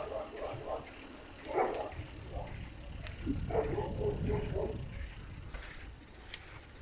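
Low rumble of wind and movement on the microphone while travelling along an asphalt lane, with a few short sounds about a second and a half in and again around four seconds in.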